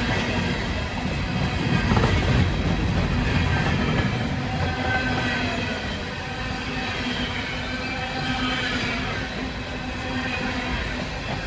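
Empty CSX coal cars rolling past close by: a steady rumble of steel wheels on rail, with thin high squealing tones over it, loudest about two seconds in.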